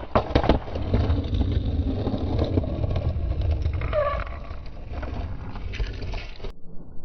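Skateboard wheels rolling over a concrete sidewalk, a steady low rumble. A few sharp knocks of the board come right at the start.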